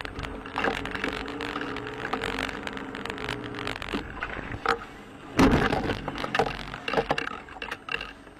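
Car driving on a wet, slushy road heard from inside the cabin: a steady engine hum and road noise for the first few seconds, with scattered knocks and rattles and one loud thump about five and a half seconds in.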